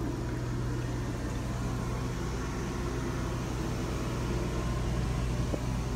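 Steady low machine hum with an even fan-like hiss inside the motorhome, unchanging throughout.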